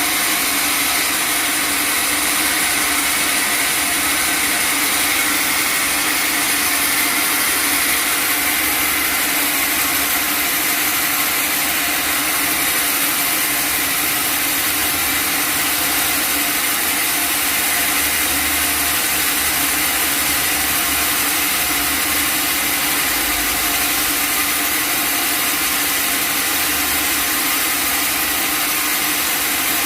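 Sawmill machinery running steadily, a constant machine noise with no breaks or pauses.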